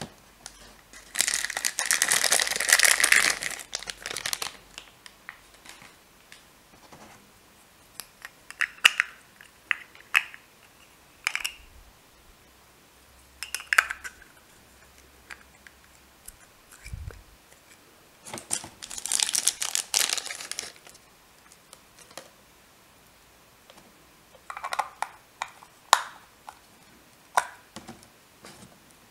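Thin clear plastic toy part crinkling as it is handled and pressed into a green plastic ring, with small plastic clicks and taps between. There are two longer crinkling stretches, one about a second in and one a little past the middle.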